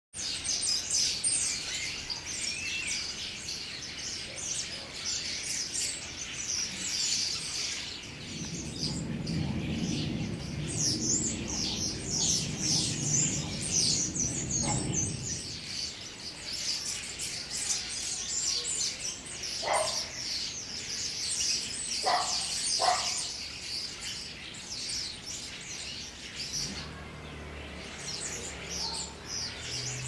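A flock of common starlings chattering: a dense, continuous mass of high twitters, clicks and whistles. A low rumble runs under it for several seconds partway through.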